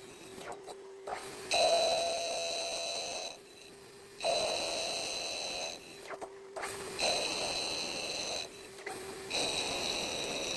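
CNC machine cutting aluminium: a steady high-pitched whine with overtones, heard in four cutting passes of about one and a half to two seconds each, with short breaks between them where a lower hum carries on.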